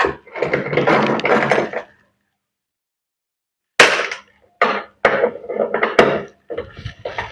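Metal parts of a top-load washing machine being worked with tools during repair: a brief clattering rattle, then a run of sharp hammer-like knocks about half a second apart.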